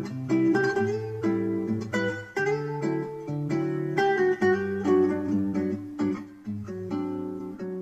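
Background music played on a plucked acoustic guitar: a light tune of picked notes in quick succession over held bass notes.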